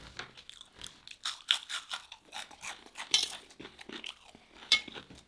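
Close-up crunching and chewing of crispy fried food, many irregular crackling bites, loudest about a second and a half in, around three seconds and near the end.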